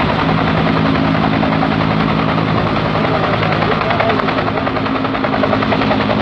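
Steady engine drone with a constant low hum, running on without a break.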